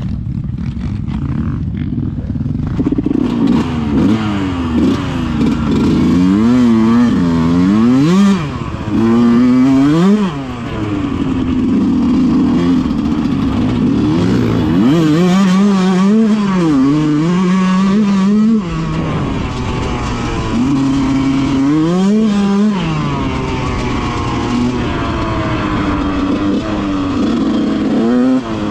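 Yamaha YZ125 two-stroke dirt bike engine revving up and down over and over while being ridden, its pitch climbing and dropping again and again with the throttle and gear changes.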